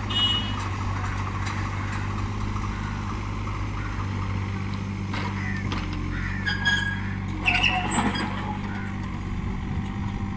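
Hitachi mini excavator's diesel engine running steadily, with a few short metallic clinks and squeaks about three quarters of the way through.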